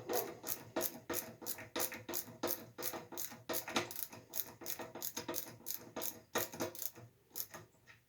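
Hand ratchet wrench clicking steadily, about three or four sharp metallic clicks a second, stopping just before the end.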